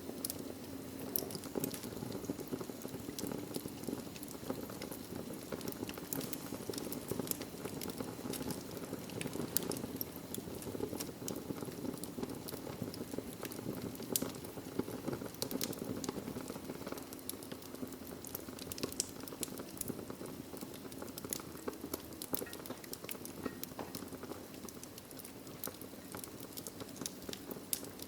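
Wood fire burning in a fireplace: a steady low rush of flames with frequent sharp pops and crackles from the burning logs.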